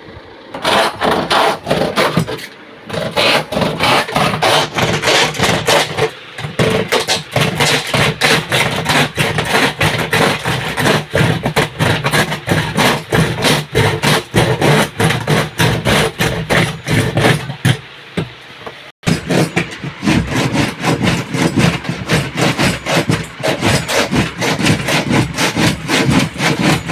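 Hammer blows on plywood: rapid, steady knocking, several strikes a second. The strikes pause briefly about two and a half seconds in and again near eighteen seconds in.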